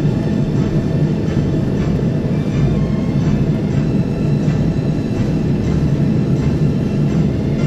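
Dark, droning background music: a steady low rumble with sustained low tones, unbroken throughout.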